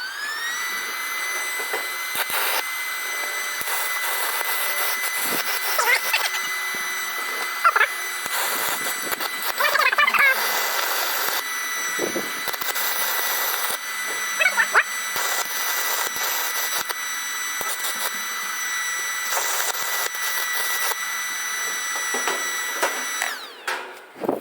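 A high-speed electric power tool spins up to a steady high-pitched whine, runs for about twenty-three seconds with gritty scraping noise as it works material, then spins down near the end.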